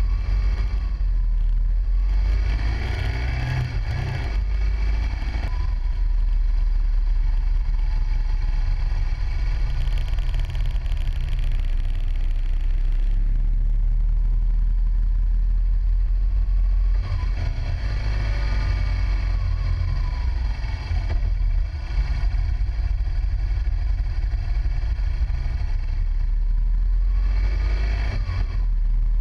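Motorcycle running along a mountain road, heard from a camera mounted on the bike, under a steady low rumble. Its note rises and falls a few times, most clearly about two-thirds of the way through.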